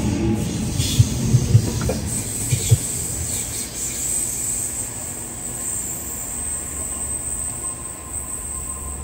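Sydney Waratah double-deck electric trains at a station platform. Wheels thump over rail joints with a heavy rumble in the first few seconds, then a steady high-pitched wheel squeal carries on as the rumble slowly fades.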